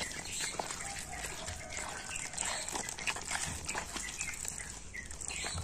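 Wet corn fritter batter, just thinned with water, being stirred: irregular soft sloshing.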